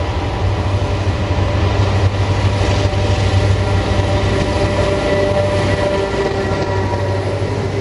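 Multiple diesel-electric locomotives, led by G543, hauling a loaded grain train past at close range: a steady, loud low engine drone with a higher whine held over it.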